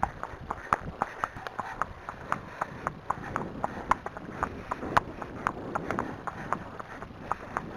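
Shod horses' hooves clip-clopping on a tarmac lane: the ridden Arabian's and the Friesian's just ahead, giving sharp, uneven clicks several times a second.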